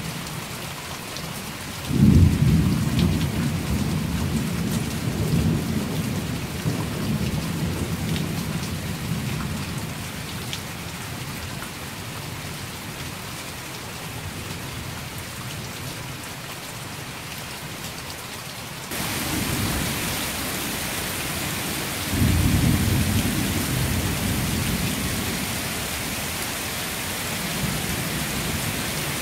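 Steady heavy rain falling, with two rolls of thunder: one breaks suddenly about two seconds in and rumbles on for several seconds, and another comes about three quarters of the way through. Past the middle the rain hiss turns suddenly louder and brighter.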